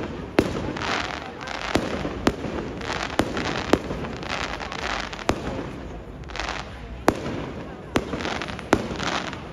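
Fireworks going off: about ten sharp bangs, irregularly spaced, over swells of dense crackling.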